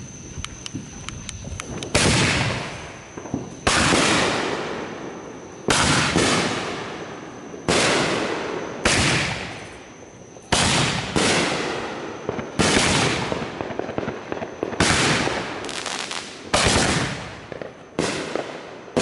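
Aerial fireworks bursting overhead: a few faint crackles, then about a dozen sharp bangs one to two seconds apart, each trailing off over about a second.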